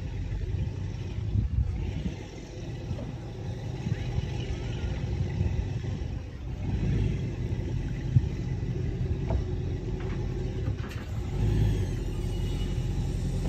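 Motorboat engine running at low speed, a low steady rumble that grows a little louder near the end as the boat comes closer.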